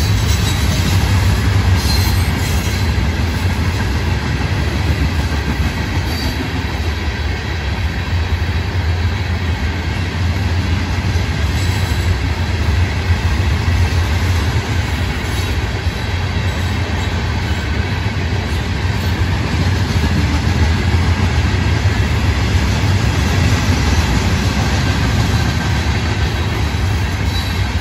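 Loaded freight hopper cars rolling past on the rails: a steady, loud low rumble of steel wheels on track, with faint high wheel squeal over it.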